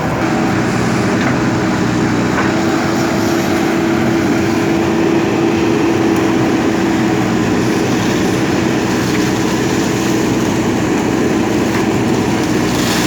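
JCB backhoe loader's diesel engine running steadily at a constant pitch.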